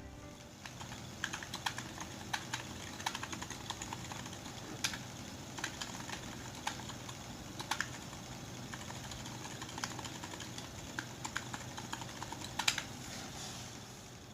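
Typing on a custom mechanical keyboard with Aliaz silent tactile switches, PBT XDA-profile keycaps and an aluminium case: a run of irregular keystrokes, some much louder than others, that stops shortly before the end.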